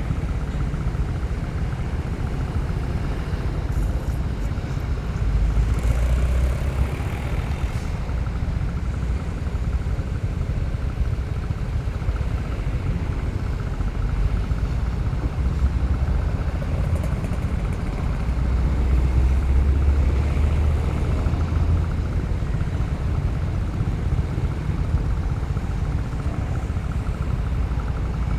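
Motorcycle riding along at road speed, with wind buffeting the helmet- or bike-mounted action camera's microphone: a steady low rumble that swells louder a couple of times.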